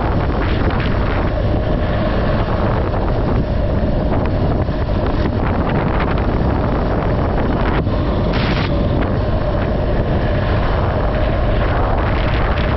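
A vehicle travelling at speed with wind buffeting the microphone, over a steady engine drone.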